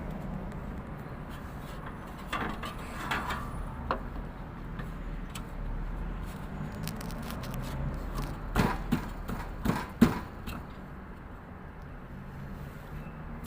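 Scattered clicks, knocks and scrapes of a new window air-conditioner condenser fan blade being handled and fitted. The sharpest knock comes about ten seconds in, over a steady low hum.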